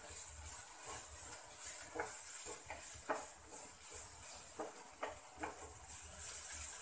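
Sliced onions sizzling in a frying pan while a spatula stirs them, with several short scrapes of the spatula against the pan.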